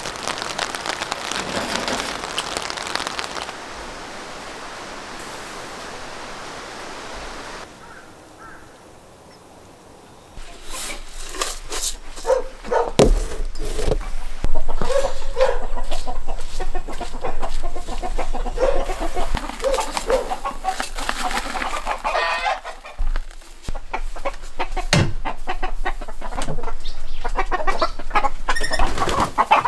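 Even hiss like rain for the first few seconds, then, from about a third of the way in, hens clucking over a scatter of clicks and knocks.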